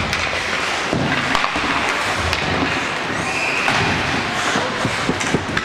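Ice hockey play in a rink: skates scraping the ice and several sharp clacks of sticks and puck, over a steady hall noise.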